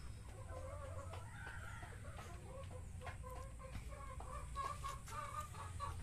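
A hen clucking in a long series of short, repeated notes.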